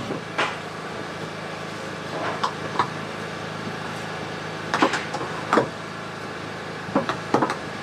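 Steady low mechanical hum with a handful of sharp knocks and clicks in small clusters.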